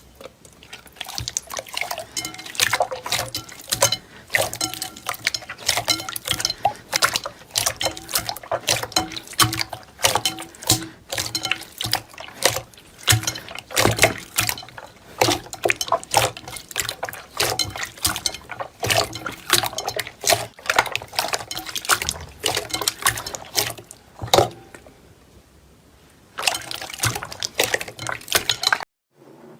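Slime being squished and pressed, giving a dense run of wet clicks and popping air bubbles, with a short lull near the end.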